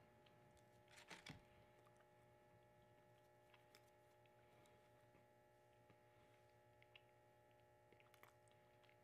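Near silence: room tone with a faint steady hum. A short cluster of small clicks comes about a second in, followed by a few scattered faint ticks.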